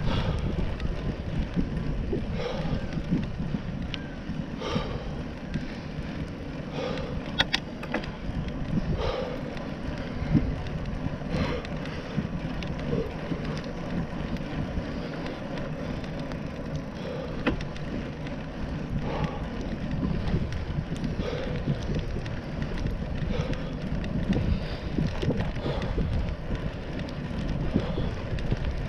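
Wind buffeting a GoPro action camera's microphone on a moving bicycle, over the steady rumble of tyres on a paved path. A soft sound recurs about every two seconds, and there is a sharp click about seven seconds in.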